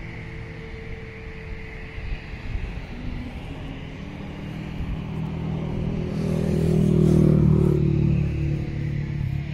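An engine drone with low, evenly pitched tones that swells to its loudest about seven seconds in and then eases, over gusty wind buffeting the microphone.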